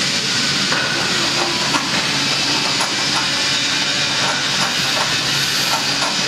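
Steady, loud hissing workshop background noise, with a few faint metallic clicks and taps as steel strut parts are handled.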